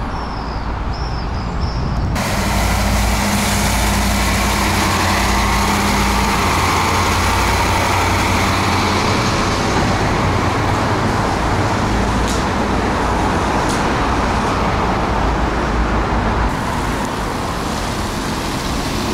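Road traffic passing close by: a steady rush of tyre and engine noise from cars and a trolleybus, which rises abruptly about two seconds in and eases near the end.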